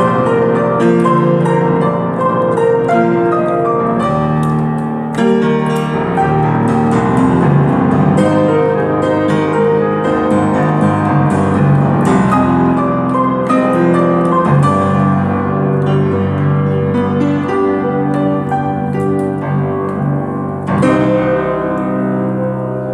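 Acoustic upright piano played with both hands: a melody over full chords with many held, ringing notes, growing softer near the end.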